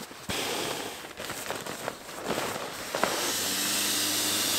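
Nylon camping gear rustling and crackling as it is handled. From about three seconds in, a steady airy hiss with a faint low hum underneath takes over.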